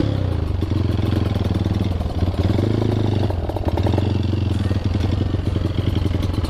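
Honda CRF dirt bike engine running steadily at low revs, its note shifting slightly a couple of times with the throttle.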